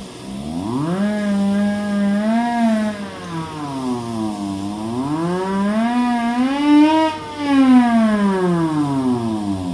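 Hand-crank siren fed by an air blower, winding up and down. Its wail rises about a second in and holds, dips around four and a half seconds in, climbs to its highest pitch about seven seconds in, then winds down toward the end.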